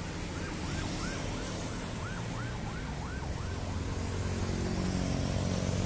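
Road traffic on a busy multi-lane city street: car and motorbike engines and tyres, with the rumble building near the end as vehicles pass close. Over it, for the first few seconds, comes a faint high chirping that repeats about three times a second.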